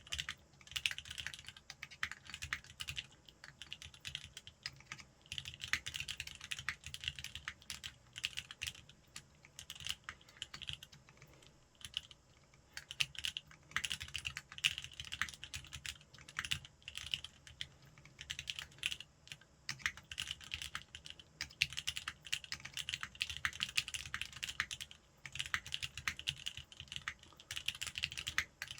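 Typing on a custom mechanical keyboard, a Linworks Whale WKL with lubed Cherry MX Black linear switches on an aluminium plate: a fast, continuous run of keystroke clacks with a few short pauses.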